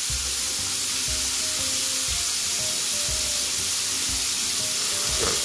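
Flour-dredged shrimp frying in hot oil in a pan: a steady sizzle.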